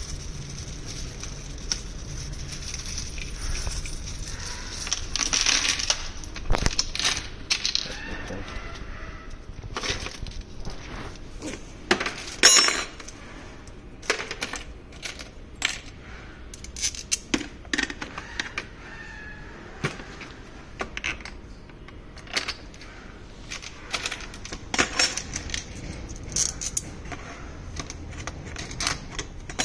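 Small metal screws, washers and steel mounting brackets clinking and rattling against each other and against the hard plastic shell of a motorcycle top case as they are handled. The clicks and clatters come at irregular intervals, with a sharper clatter about halfway through.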